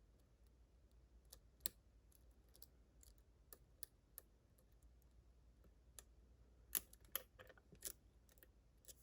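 Faint, irregular clicks of a lock pick working the pin stack of a Ruko 600 lock, with a denser run of clicks about two-thirds of the way in.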